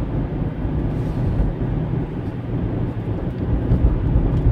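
Steady road noise inside a moving car's cabin: a low rumble of engine and tyres at cruising speed.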